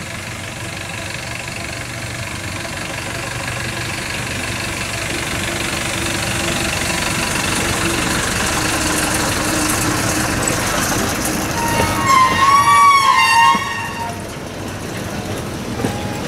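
Takachiho Amaterasu Railway's open tourist cart running along the track and passing close by, its engine and running gear growing steadily louder as it approaches. About three-quarters of the way through, a loud wavering high tone lasts roughly two seconds.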